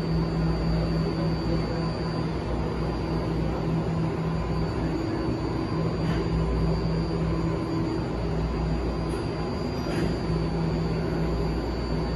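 BART Fleet of the Future train standing at the platform with its doors open: a steady hum with a high whine from its onboard equipment, and a couple of faint clicks.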